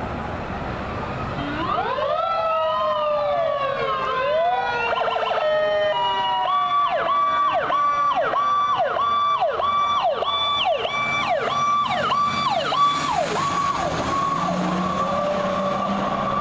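Fire truck sirens: several wailing sirens overlap, one switches to a fast up-and-down yelp about 6 seconds in, and under them a long tone falls slowly in pitch.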